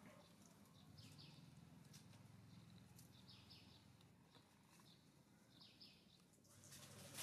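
Near silence: faint outdoor ambience with a low hum and three faint high chirps, about two seconds apart.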